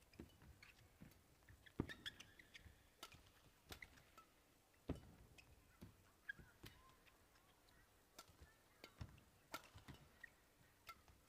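Faint badminton rally: sharp racket strikes on the shuttlecock every second or so, with short squeaks of shoes on the court floor.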